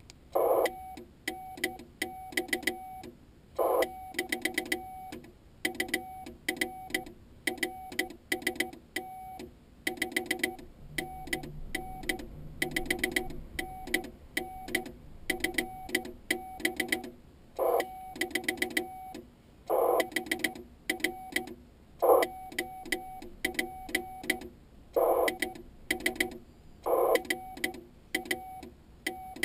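Morse code (CW) from an Icom IC-701 ham radio transceiver: a single steady tone keyed on and off in dots and dashes throughout. A few louder knocks are mixed in.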